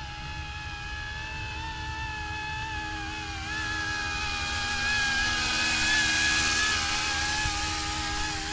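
F09-S electric RC scale helicopter in flight: a steady whine from its motor and rotors with a few higher overtones, wavering slightly in pitch. It grows louder, with more rushing noise, about five to seven seconds in as it comes closer.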